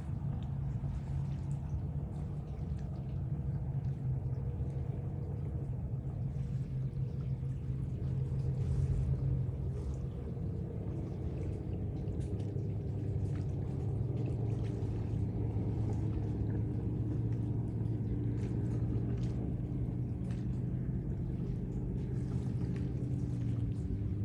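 An engine running steadily with a low drone, its pitch settling a little lower about halfway through.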